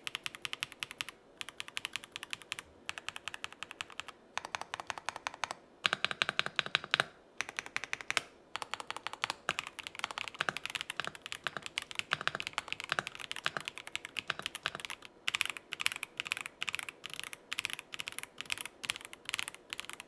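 Typing on a KZZI K75 Pro gasket-mounted mechanical keyboard with pre-lubed Moment linear switches and double-shot PBT keycaps: runs of fast keystrokes with brief pauses between them. The lubed stabilizers give no ticks or rattles.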